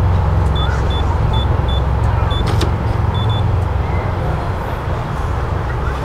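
Bauer NE Bluetooth RV door lock keypad giving a short high beep for each of five key presses, then a click and two quick beeps a little after three seconds in: the signal of an accepted code. A loud, steady low rumble runs under it all.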